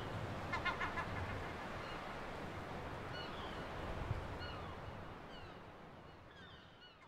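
Seaside ambience: a steady wash of surf with short, high bird calls that fall in pitch, fading out near the end.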